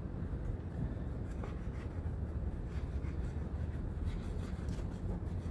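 Kitchen knife cutting through raw pig tongue on a wooden cutting board: a soft scraping with a few faint knocks.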